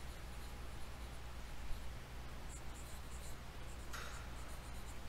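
Marker pen writing on a whiteboard: faint, intermittent strokes over a steady low hum.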